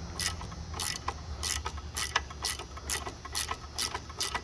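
Craftsman dual ratcheting wrench ratcheting back and forth, its pawl giving sharp, evenly spaced clicks about twice a second. The ratchet has a very light back drag.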